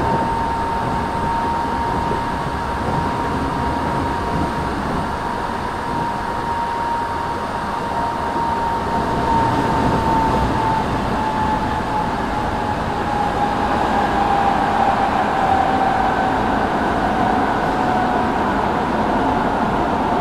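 Kobe Municipal Subway 1000 series train with Hitachi GTO-VVVF drive, heard running from inside the car: a steady rumble with a whine that slowly drops in pitch.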